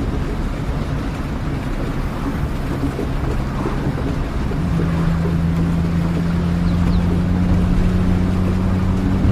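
Steady rain noise over the low drone of a vehicle's engine, as on a ride in the rain; about four and a half seconds in the engine drone shifts pitch and grows stronger.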